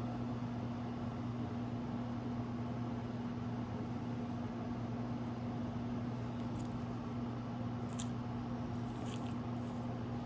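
Refrigerator humming steadily with a low, even drone, with a few faint light clicks in the last few seconds.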